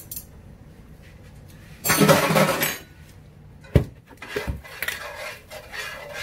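Kitchen handling sounds: a metal spoon stirring and scraping through corn in a skillet. About two seconds in there is a loud clattering rustle lasting about a second, and just before four seconds a single sharp knock, followed by a run of small clicks and scrapes.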